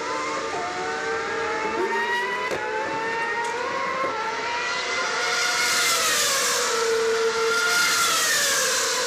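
Formula One car engine sound from a pit stop video, played over a hall's loudspeakers. The engine notes glide up and down, and the sound grows louder and hissier in the second half.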